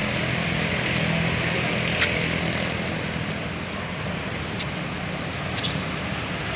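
A low engine hum over steady outdoor background noise, fading out about halfway through, with a few short clicks.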